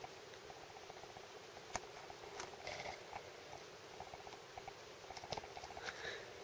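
Sleeping Labrador's soft, faint breathing, swelling about every three seconds, with a few light clicks.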